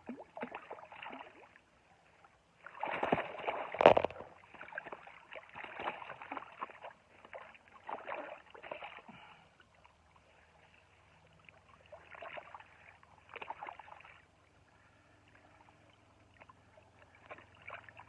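Water splashing and sloshing in irregular bursts as large barbel are handled out of a keepnet and released back into the river. The loudest splash comes about four seconds in, with a sharp click.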